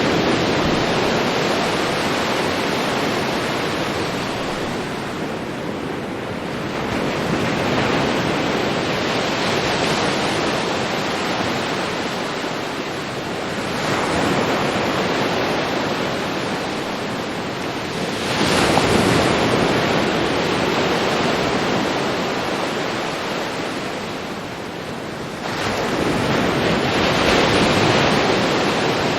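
Ocean waves breaking on a beach: continuous surf that surges as each wave breaks, about every four to seven seconds, then washes out.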